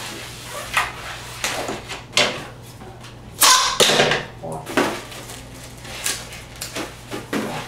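260Q latex twisting balloon being twisted and squeezed into bubbles: a string of short rubbery squeaks and rubs, the loudest about three and a half seconds in.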